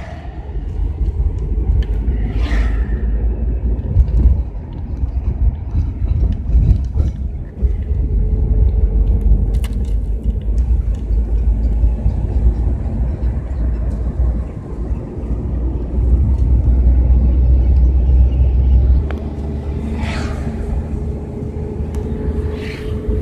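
Car driving along a road, heard from inside the car: a steady low rumble of engine and road noise that eases a little near the end.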